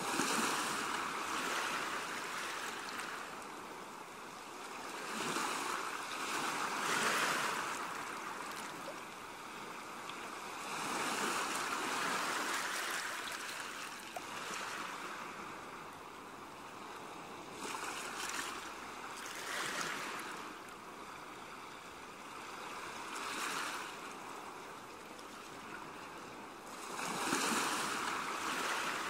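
Waves washing in, a rushing hiss that swells and fades every few seconds.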